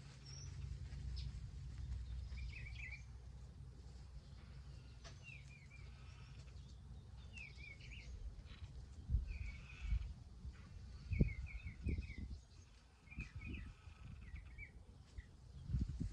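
A small songbird chirping in short, quick phrases, repeated every second or two. Under it a low rumble and several dull thumps, loudest in the second half.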